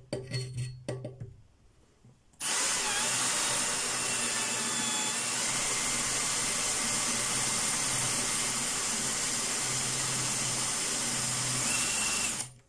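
Einhell cordless drill: a few short blips, then about two seconds in it starts up and runs steadily at full speed for about ten seconds, stopping near the end.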